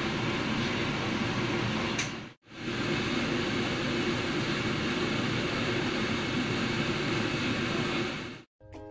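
Steady background hum and hiss, heavier in the low end, cutting out briefly about two and a half seconds in and again near the end.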